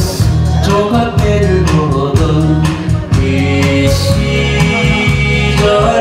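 Korean trot song played live with a recorded backing track: a steady beat, bass and melody, with a male singer's voice over it.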